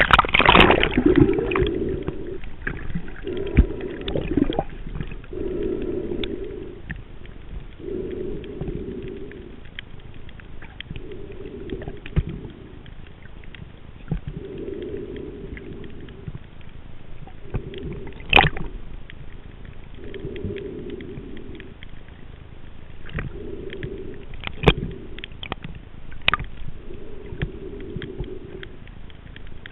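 Underwater sound of a snorkeler swimming, picked up by a head-mounted camera in its waterproof housing. A muffled, rhythmic swishing comes about every two and a half seconds, with a few scattered sharp clicks.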